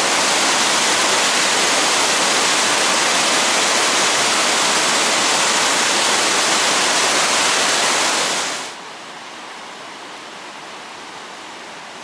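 Iguazu Falls' cascades rushing as a loud, dense, even noise of falling water. About nine seconds in it drops abruptly to a quieter, steady rush of water.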